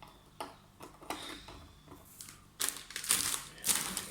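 A few light clicks, then dense crackling crunches from about two and a half seconds in, from a crunchy snack.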